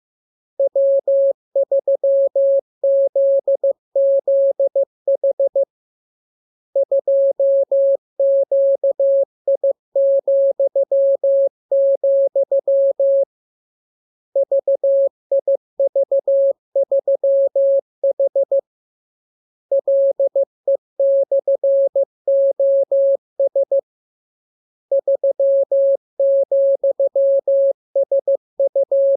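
Morse code (CW) sent as a single steady beep keyed on and off in dots and dashes, in runs of characters separated by pauses of about a second: a practice radiogram of code groups for receiving by ear.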